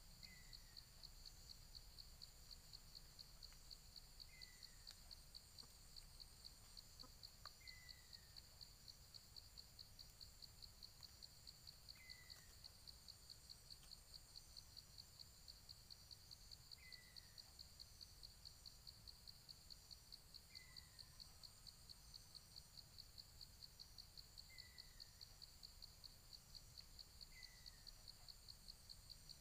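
Faint insects trilling in rapid, even pulses, with a short falling bird note repeated about every four seconds, eight times in all.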